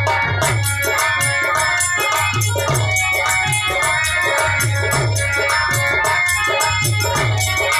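Harmonium playing a melody over a steady rhythm of low, pitch-sliding drum strokes and quick shaker-like jingling.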